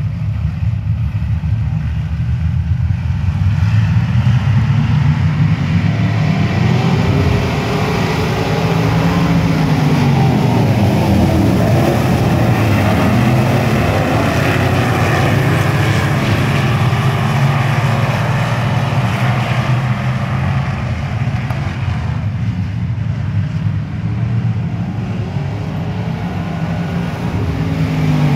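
A pack of dirt-track sportsman race cars running around the oval, their V8 engines overlapping and rising and falling in pitch through the turns and down the straights. Near the end a car passes close, its engine note dropping as it goes by.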